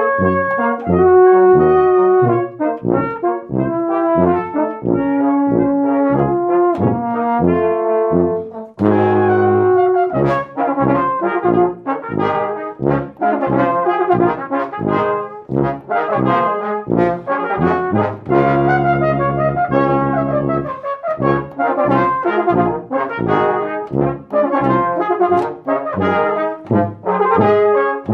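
Brass ensemble playing music in a run of short, separated notes over held lower notes, with a brief break about eight and a half seconds in before the next phrase.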